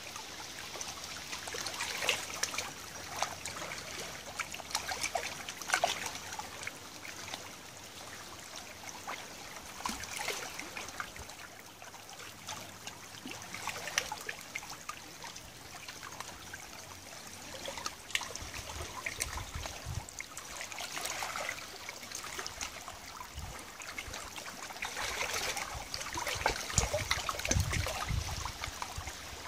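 Shallow tidal river water lapping and trickling over stones on the bank, swelling in small surges every few seconds, with some low rumbling in the second half.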